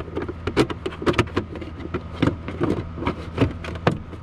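Hard plastic clicking and knocking as the cabin air filter access cover is pushed and snapped back into its housing behind a Toyota Tacoma's glovebox: a quick, irregular series of sharp snaps. A steady low hum runs underneath.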